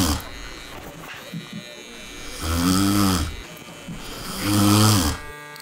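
A man snoring in his sleep: two long, loud snores about two seconds apart, the tail of another just as it begins. Electric hair clippers buzz quietly between the snores.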